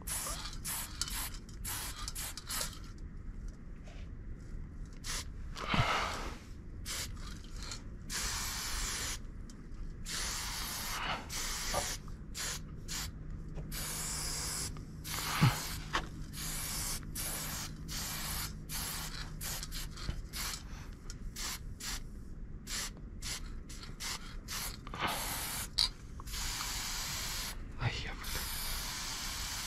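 Aerosol spray-paint can spraying in many bursts, some short taps and some long hisses lasting a few seconds, as lines are painted onto a bus panel. A low steady hum runs underneath and fades out about two-thirds of the way through, and there are a few sharp clicks.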